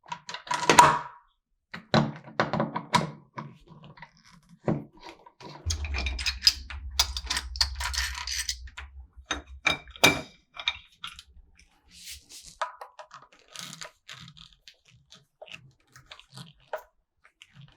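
Door-lock hardware being handled and unscrewed: scattered clicks, knocks and clatter of metal parts, with a low steady hum lasting about four seconds in the middle.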